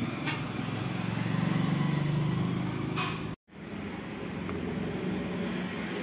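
A low engine-like hum that swells over the first few seconds and then eases, with a couple of faint clicks. The sound drops out abruptly for a moment just past the halfway point, then the hum resumes.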